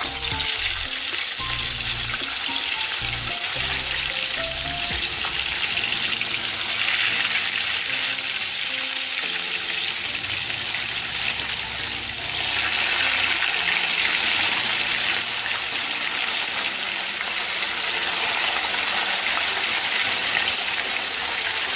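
Marinated fish pieces frying in hot oil in a pan on medium heat: a dense, steady sizzle that gets a little louder about halfway through.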